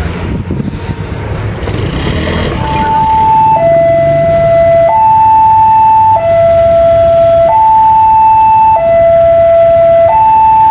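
Two-tone hi-lo siren or alarm starting about three seconds in, switching steadily between a higher and a lower pitch about every 1.3 seconds, over a noisy background.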